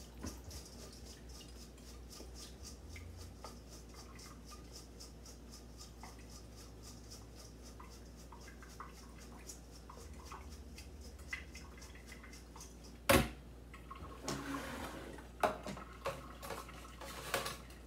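Freshly rinsed broccoli florets shaken and turned in a stainless-steel colander to drain, a soft quick rhythmic rustling with dripping water. About thirteen seconds in, a loud knock as the metal colander is set down in the steel sink, followed by a few smaller clatters and rustles.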